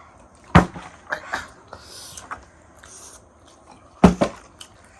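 A bottle being flipped and knocking down onto a hard surface. There is one sharp knock about half a second in and a quick double knock near the end.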